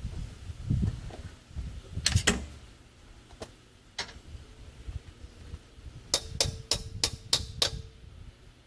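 Hammer blows on steel: a few separate knocks, then a run of six quick strikes, about four a second, with a short metallic ring under them.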